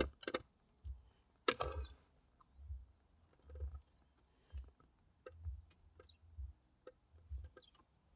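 Scattered small clicks and knocks with dull low thumps as hands work at a bar in a car's dashboard radio opening, trying to pull it out, with a louder clatter about a second and a half in.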